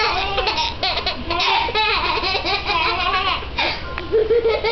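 A baby and a toddler laughing and giggling in short, repeated bursts.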